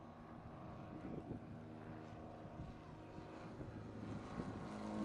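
Single-engine propeller motor glider flying a low pass, its engine drone growing steadily louder as it approaches, strongest near the end.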